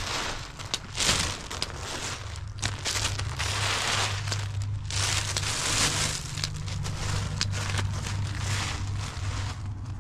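Thin plastic bag rustling and crinkling in repeated bursts as hands shift small hard cubes inside it, with a few sharp ticks, over a steady low hum.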